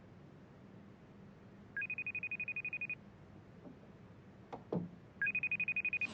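Smartphone video-call ringing tone: each ring is a short lower beep then a fast-trilling high tone lasting about a second. It rings twice, about three and a half seconds apart, and the second ring is cut off. A couple of soft knocks come shortly before the second ring.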